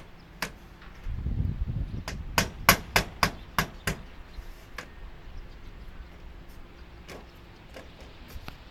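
Hammering: a quick run of about six sharp blows, roughly three a second, starting about two seconds in, with a few scattered lighter knocks before and after.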